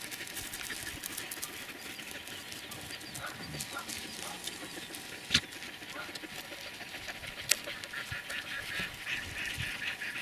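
Quiet open-field ambience: faint rustling in dry grass with scattered light ticks, and two sharp clicks, one about five seconds in and another about seven and a half seconds in.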